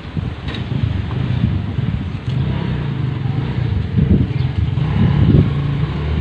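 A motor vehicle engine running nearby: a low rumble with a steady hum that grows louder about two seconds in.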